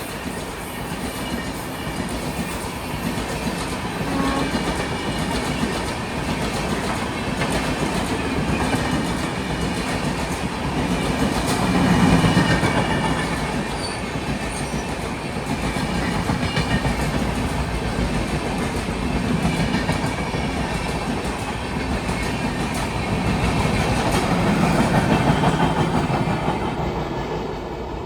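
Train running past at speed: a continuous rumble of the cars with the clickety-clack of wheels over the rail joints, swelling louder twice.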